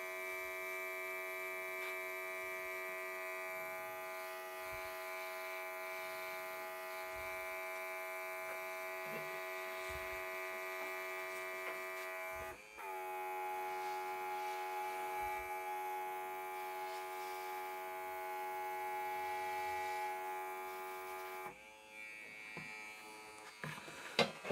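The built-in compressor of a Worx WX742 Maker X 20V cordless airbrush runs with a steady high whine while it sprays paint. The whine dips briefly about halfway through and turns quieter a few seconds before the end, with a few light clicks after that.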